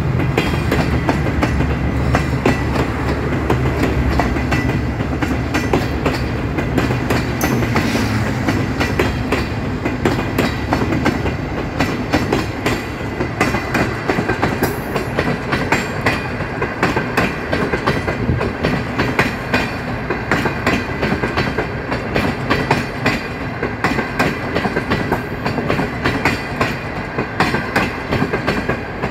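CNR passenger coaches of a departing train rolling past, their wheels clacking steadily over the rail joints. Under them, the Dalian CKD8H diesel locomotive's engine hums as it pulls away, fading over the first ten seconds or so.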